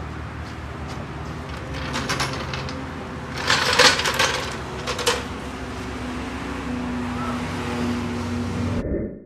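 Clanking and rattling of a hydraulic floor jack and its steel handle as they are set up under a car, loudest about three and a half to four seconds in, over a steady low mechanical hum. The sound cuts off suddenly near the end.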